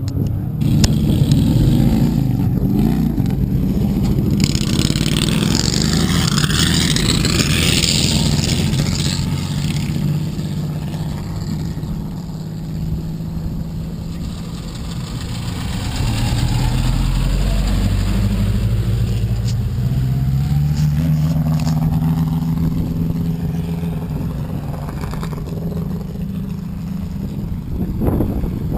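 Vintage speedway midget race car engines running loudly, revving up and down around four to nine seconds in, with a deeper rumble building from about halfway.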